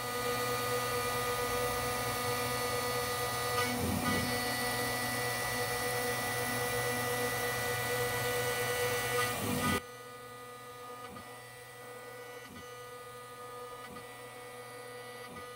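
CNC mill spindle running at about 15,000 RPM with a single-flute end mill cutting HDPE plastic, a steady whine with several tones held level. About ten seconds in the sound cuts off suddenly to a much quieter hum with a few faint ticks.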